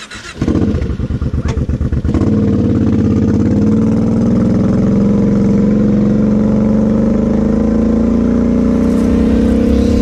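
Kawasaki KFX 700 V-Force quad's V-twin engine heard from the rider's seat: it chugs with a pulsing beat at low revs for the first couple of seconds, then pulls smoothly at a steady, slowly rising pitch as the quad rides on.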